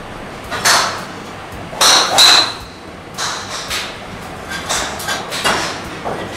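PING G410 Plus titanium driver striking a golf ball about two seconds in: a sharp metallic crack with a brief ring. Several fainter knocks and clicks come before and after it.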